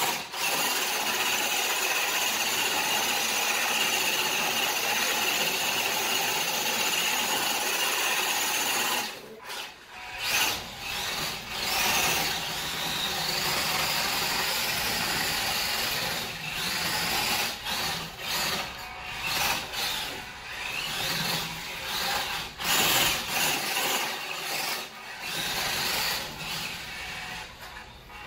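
WPL D12 RC kei truck's small electric motor and drivetrain whining as it drives and drifts on a hardwood floor, its tyres scrubbing on the wood. The whine holds steady for the first several seconds, dips about nine seconds in, then rises and falls with the throttle.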